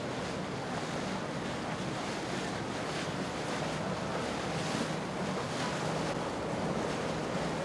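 Wind rushing on the microphone over water wash and the steady low hum of a boat engine running.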